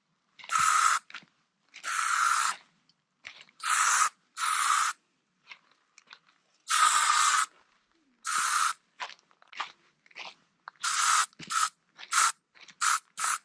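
Aerosol can of mosquito repellent sprayed in a series of hissing bursts, each under a second long, with pauses between them. The bursts come shorter and quicker toward the end.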